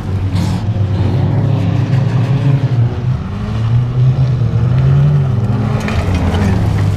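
Wreck-race car engines running hard on a dirt track. One engine's note climbs about four seconds in, then drops as the car comes close.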